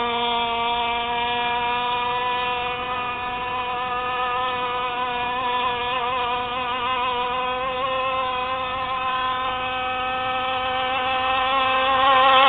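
CY 26cc two-stroke petrol engine of a radio-controlled rigger boat running at high revs, a steady pitched drone that wavers slightly in pitch and grows louder near the end.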